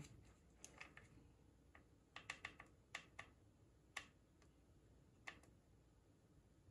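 Faint, scattered small clicks and taps from a hot glue gun and plastic wand parts being handled while the LED wires are glued, with a few clicks bunched together near the middle. Otherwise near silence.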